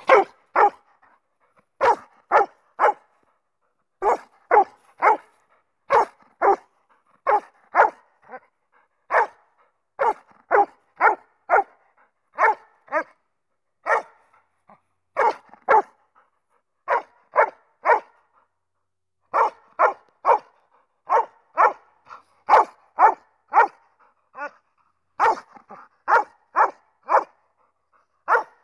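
Black Labrador-type dog barking over and over, loud, sharp barks in quick runs of two to four with short pauses between.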